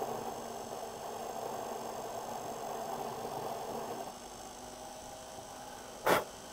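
Small bench mill-drill spindle running, with a center drill spotting the wrist-pin hole in a cast-iron piston blank. The cutting noise drops away about four seconds in, leaving the motor's steady hum, and a short sharp click comes near the end.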